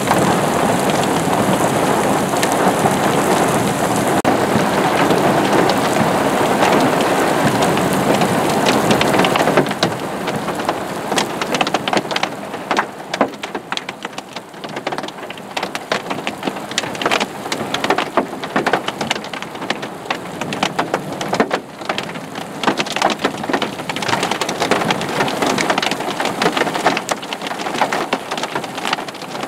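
Heavy thunderstorm rain pouring in a dense, steady hiss. About ten seconds in it changes to dime- to penny-size hail: a rapid patter of many sharp, separate hits.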